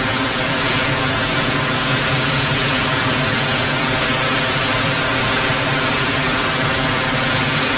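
Storm wind and driving rain rushing steadily against the building, a loud even noise with a faint low hum underneath.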